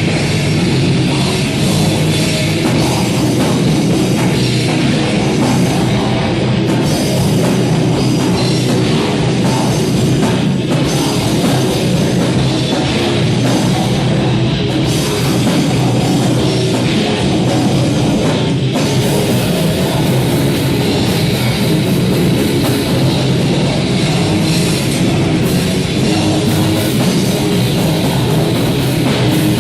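Heavy metal band playing live, loud and steady: distorted electric guitars over a pounding drum kit.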